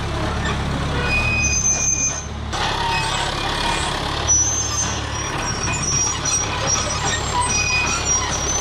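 John Deere 450G crawler dozer's diesel engine running steadily as the machine crawls along dragging felled logs, with short high-pitched squeaks coming and going over the engine.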